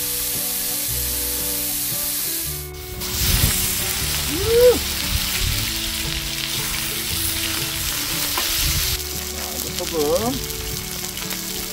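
Oil sizzling steadily on a large cast-iron pot-lid griddle over a wood fire. About three seconds in, tomahawk steaks go onto the hot oil and the sizzle grows louder. Light background music plays underneath, with a brief gliding tone near the middle.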